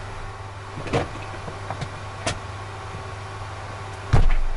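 Steady low hum inside a parked business jet's cockpit with its electrics powered and the engines not yet running, broken by a few sharp clicks and a heavy thump near the end.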